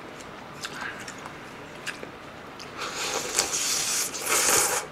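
A person slurping noodle soup from a small dish held at the lips. The slurp is a loud, hissing suck that starts about three seconds in and is loudest near the end. Before it come a few light clicks and chewing sounds.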